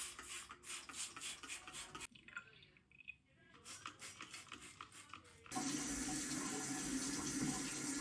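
Two runs of quick, short hissing strokes, then about five and a half seconds in water starts running steadily from a tap.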